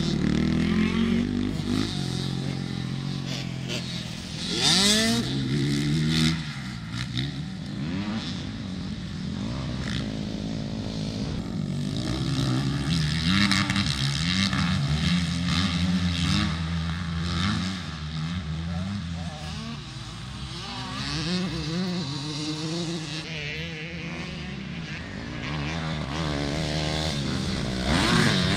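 Motocross dirt-bike engines revving up and down as the bikes ride a dirt track, pitch rising and falling with the throttle. They are loudest when a bike passes close about five seconds in and as one approaches near the end.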